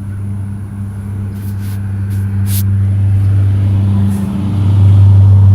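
A motor vehicle's engine running, a steady low drone that grows louder over the last couple of seconds.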